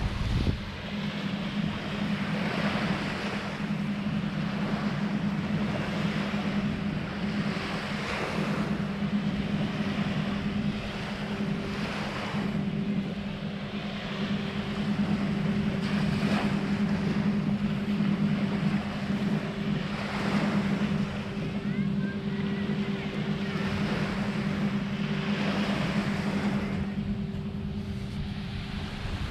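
Steady low drone of a motorboat engine, with a second higher hum joining after several seconds, over small waves washing onto the sand every few seconds.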